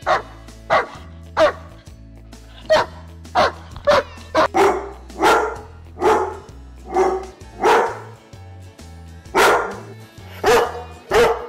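Dobermans barking: a run of loud, sharp barks, roughly one or two a second, with a short pause a little after the middle. A steady low backing music bed plays underneath.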